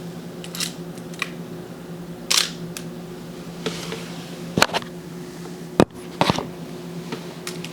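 Olympus OM10 35mm SLR camera being worked by hand: the shutter firing and the film advance lever wound, heard as a series of short, sharp mechanical clicks, with the loudest near the middle.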